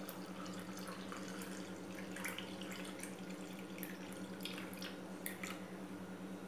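Fizzy lime soda poured from a jar into a glass, a faint pouring trickle with scattered crackling of bursting bubbles. A steady low hum sits underneath.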